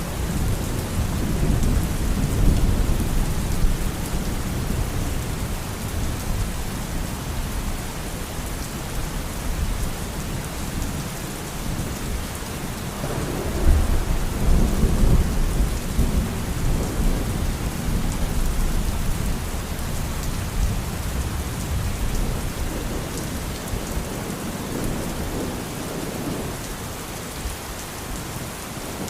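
Steady rain with rolling thunder rumbling underneath, swelling about halfway through and easing off near the end.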